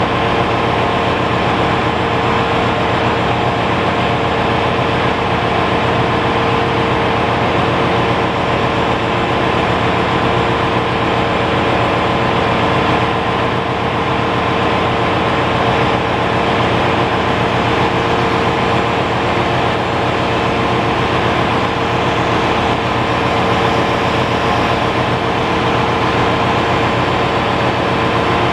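Loud, steady machinery noise of a ship's engine room: an even mechanical din with a constant hum and a fixed whine over it.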